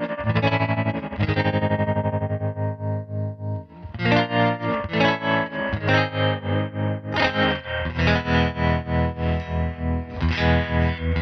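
Electric guitar (a Hallmark Swept Wing) played through the Crazy Tube Circuits White Whale spring reverb and tremolo pedal, ringing chords and picked notes with spring reverb. From about four seconds in, the volume pulses evenly with the tremolo, about twice a second.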